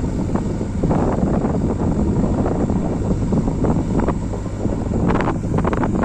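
Diesel engines of a JCB 3DX backhoe loader and a nearby tractor running, a steady low rumble, with wind buffeting the microphone and a few short rattles about five seconds in.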